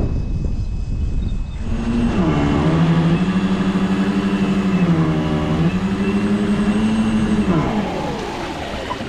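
Radio-controlled model boat's motor running at varying throttle, its pitch rising and dipping repeatedly; it starts about a second and a half in over a low rumble and fades near the end.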